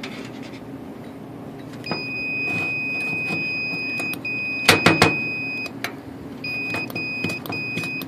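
Multimeter continuity beeper sounding across a furnace rollout switch. One long steady beep, a short break, a second long beep, then a string of short broken beeps as the switch is moved by hand, with a few sharp handling clicks about five seconds in. The tone cutting in and out shows a faulty rollout switch with an intermittent contact, which the technician puts down to a bad connection inside it.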